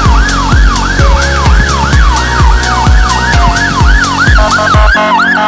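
Fire engine electronic siren on a fast yelp: a falling sweep repeated about three times a second, loud throughout. A low pulsing sound repeats about every half second beneath it and stops about five seconds in.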